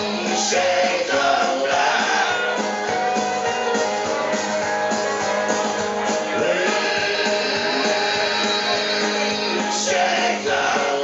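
Live country band playing a mostly instrumental passage: fiddle, acoustic and electric guitars and upright bass.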